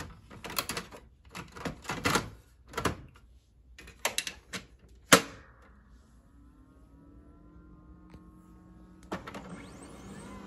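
Plastic clatter and knocks as the drum and toner unit is slid into a Brother HL-L2390DW laser printer, then one sharp loud snap of the front cover shutting about five seconds in. The printer then starts up after the cartridge change: a faint rising motor whine, and from about nine seconds a steadier mechanical whir.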